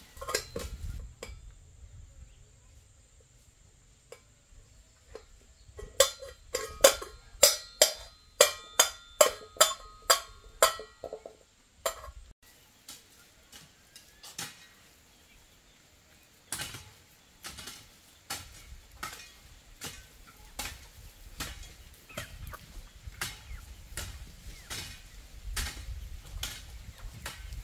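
Repeated sharp strikes of a hand tool, about two a second, each with a short ringing tone, for several seconds. After a pause comes a slower run of fainter, duller strikes.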